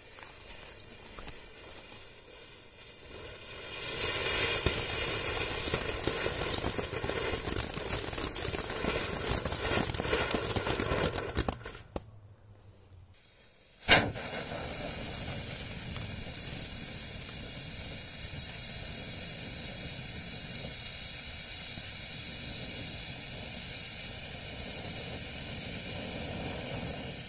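Garden firework fountains spraying sparks with a steady hiss. The first grows louder about four seconds in and stops near twelve seconds. A single sharp bang about fourteen seconds in is followed by a second fountain hissing steadily.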